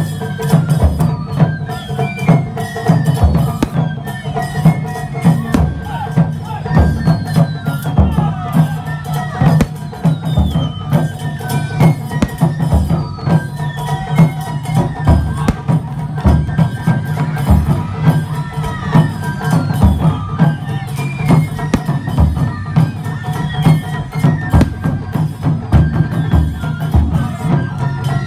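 Japanese taiko drum ensemble performing, with deep drum strikes about once a second over a steady rhythm, sharp wood-like clicks and a melody carried above the drums.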